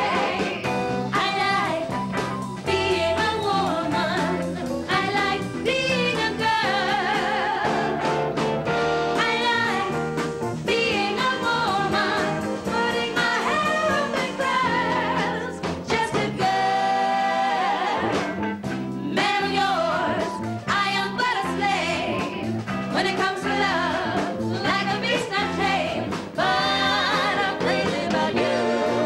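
Female vocal trio singing a soul number in harmony, with wavering held notes, backed by a live band.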